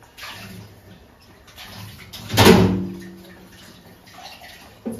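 A metal kitchen vessel clanks once, loudly, about two and a half seconds in, ringing briefly, amid softer handling sounds; a small click comes near the end.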